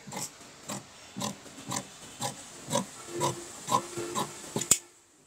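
Large tailor's shears cutting through coat fabric, a crunching snip about twice a second as the blades close and reopen, with a sharp click near the end.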